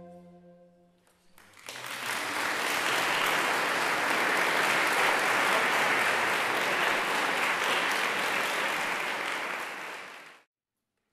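The last chord of a children's orchestra fades away in the hall, then audience applause starts about a second and a half in, holds steady, and cuts off abruptly near the end.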